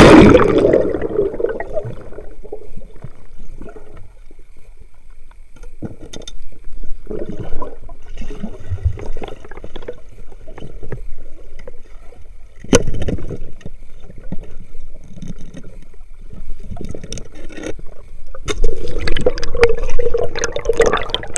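Water sloshing and gurgling around a camera held underwater. It opens with a loud rush of water that fades over a couple of seconds, then comes and goes in irregular swishes, with a sharp knock about thirteen seconds in and louder swirling near the end.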